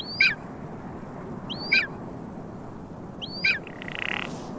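A bird gives three short, identical calls about a second and a half apart, each a quick upward flick then a falling sweep, over a steady background of wind.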